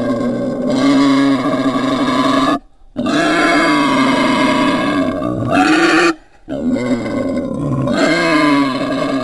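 Wild boar calling: three long, drawn-out pitched calls, each lasting a few seconds and stopping abruptly, with short silent breaks between them.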